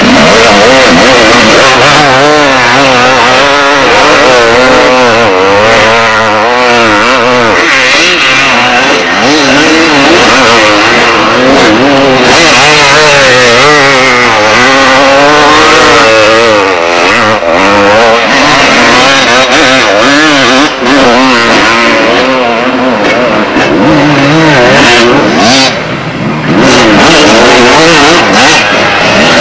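Two-stroke motocross dirt bikes running loud on a sand dune climb. The engine pitch rises and falls over and over as the riders work the throttle under load.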